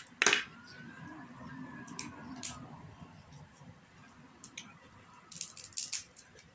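Cooked crab shell cracking and snapping as it is broken apart by hand. The loudest crack comes just after the start, a few more follow, and a quick run of cracks comes near the end. A faint tone rises and falls in the first few seconds.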